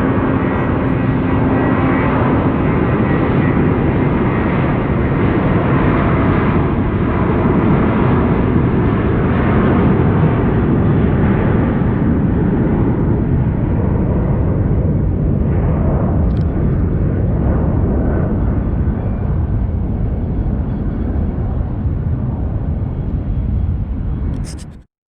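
Jet airliner engines passing close by: a loud, steady rumble and rush that slowly fades over the second half, then cuts off abruptly near the end.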